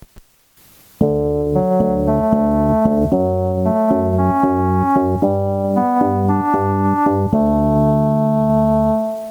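Japanese railway station departure melody played as a departure bell: a short electronic keyboard tune starting about a second in, moving to a new note roughly every half second, then fading out near the end where it is cut off partway through.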